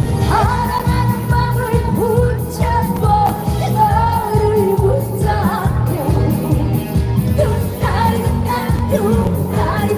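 A woman singing a trot song live with vibrato over an amplified backing band with a steady drum beat.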